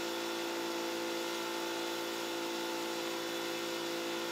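An engine running steadily at an unchanging speed, a constant drone with a fine even pulsing underneath.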